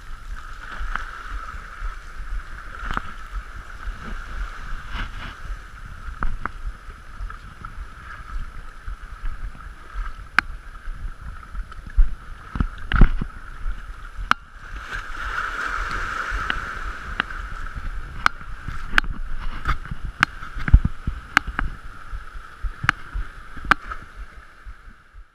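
Shallow seawater sloshing and washing against rocks along the shore, swelling around the middle, with scattered sharp knocks and clicks throughout.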